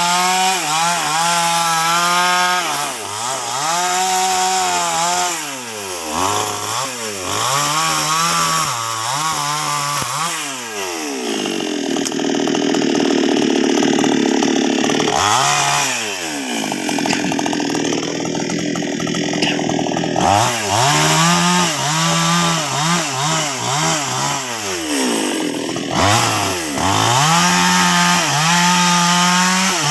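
NWESST 628 two-stroke chainsaw cutting sengon wood. The engine revs up again and again and sags in pitch as the chain bites, with two longer stretches of steady sawing under load near the middle.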